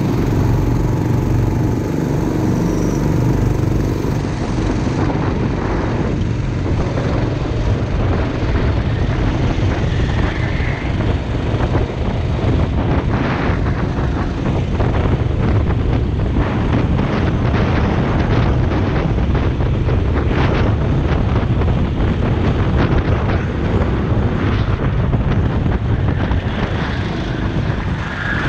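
Go-kart engine running hard at racing speed, heard from onboard the kart: a loud, steady engine noise with no letting up.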